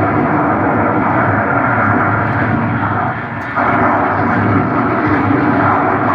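A steady, loud rushing rumble that dips briefly about three seconds in.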